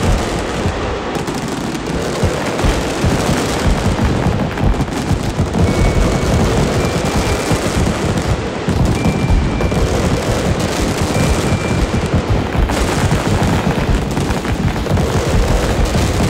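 Fireworks barrage: many booms and crackling bursts going off close together, mixed with music.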